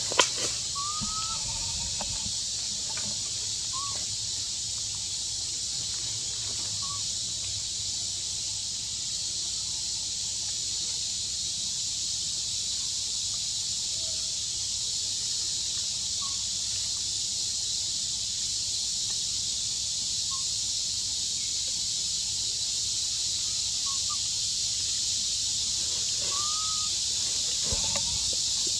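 Steady, high-pitched chorus of insects droning without a break, with a few faint short chirps scattered through it and one sharp click just after the start.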